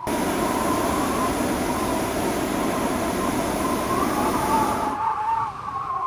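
Hot air balloon's propane burner firing, a loud steady roar that starts abruptly and cuts off about five seconds in.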